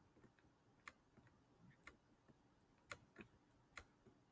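Near silence with a few faint, irregular clicks from handwriting a word on screen with a pen tool.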